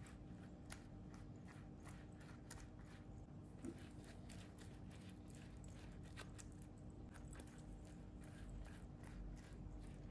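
Silicone pastry brush dabbing and spreading oil inside hollowed eggplant halves: faint soft clicks and wet crackles in quick, irregular succession.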